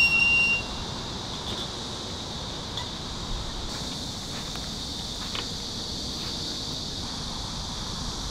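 Steady high-pitched insect buzzing, with a brief high-pitched tone right at the start.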